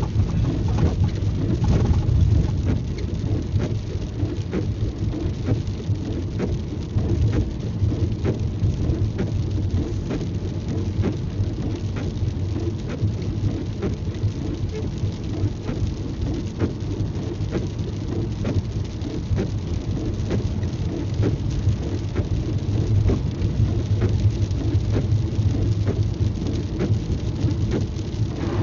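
Rain striking a moving car, heard from inside the cabin: many small sharp drop ticks over a steady low rumble of the car driving on a wet road.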